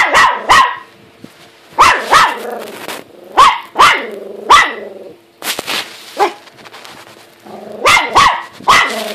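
Small dog barking repeatedly at his own reflection in a mirror: sharp barks coming in pairs and threes, about a dozen in all.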